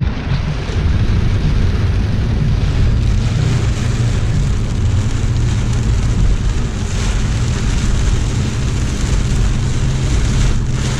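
Heavy rain pounding on the roof of a car, heard from inside the cabin, over the steady low rumble of the car driving on wet road.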